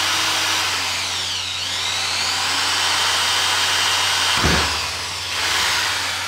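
Bosch GSR 7-14 E corded drill/driver running fast, drilling through 10 mm plywood with a high-speed-steel bit. Its motor whine sags in pitch about a second and a half in as the bit bites, then picks back up. There is a thump about four and a half seconds in, and the whine eases off near the end.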